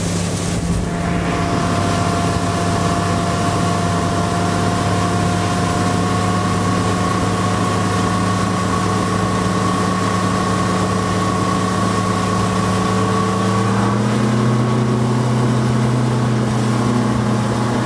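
Outboard motor of a bass boat running at speed, a steady engine drone over the rush of wind and water. A few seconds before the end the engine note steps up higher.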